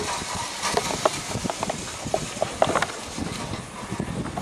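Scattered small clicks and knocks as a round multi-pin cable connector is handled and fitted into the socket of a portable ultrasound scanner unit, over a steady hiss.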